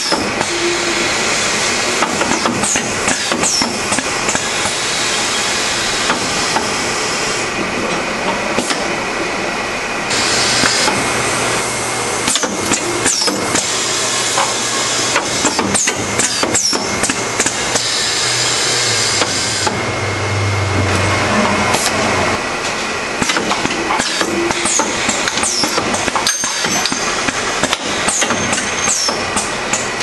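Automated transmission-gear crimp machine's push-off test station running through its cycle. Repeated clicks and clacks of the mechanism mix with bursts of hiss that start and stop, and a low hum swells for several seconds in the middle.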